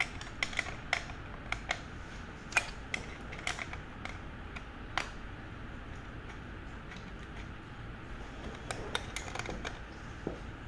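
Light metallic clicks and taps, irregular and in small clusters, from an 8 mm wrench working two screws out of an e-bike's rear tail-light mount.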